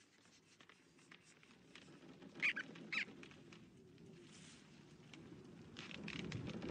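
Two short, high-pitched squeaks from cartoon rodent characters, half a second apart, followed by a background of small clicks and rustling that grows louder near the end.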